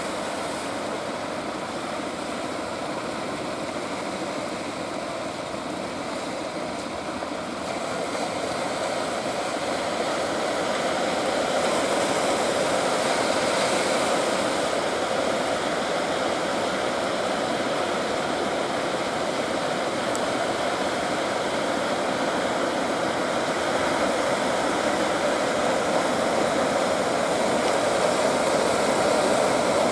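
Steady rush of surf and breaking waves. It grows a little louder about eight to ten seconds in.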